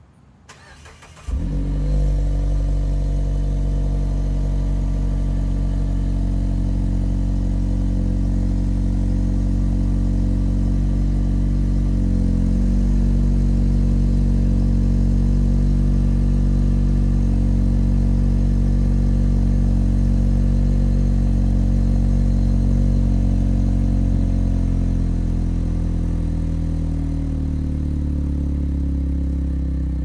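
Mazda 6 with a MagnaFlow cat-back exhaust cold-starting: the engine catches suddenly about a second in and then idles steadily through the exhaust. The idle note shifts lower near the end as it settles.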